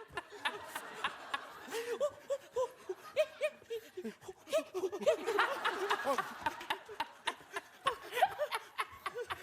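Studio audience laughing, many voices overlapping, swelling louder about five seconds in.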